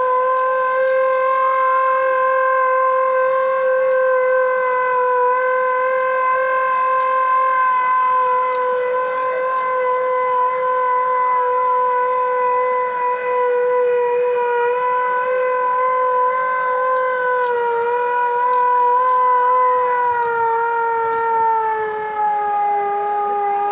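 Civil-defence siren holding one long steady tone, sounded as the W-Hour commemorative alarm. Its pitch slides down near the end as it begins to wind down, while fainter rising and falling tones sound beneath it.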